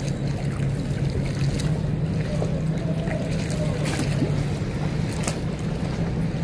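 Steady low hum of a boat engine running, with a few faint clicks.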